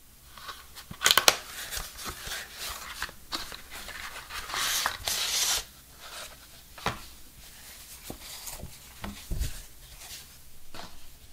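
A phone box's cardboard insert and paper leaflets being handled: rustling and sliding of card and paper, broken by sharp taps and clicks, the loudest about a second in, and a dull thump near the end.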